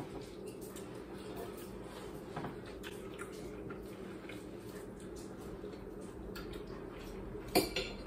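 Quiet table sounds of eating, with a steady low room hum and a few faint clicks of forks. A sharper clink of a fork against a plate comes near the end.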